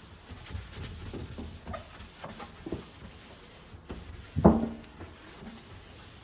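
Rubbing and scraping from household cleaning or handling of items on a kitchen counter, irregular and uneven. About four and a half seconds in, one loud clunk with a brief ringing tone as something hard is set down.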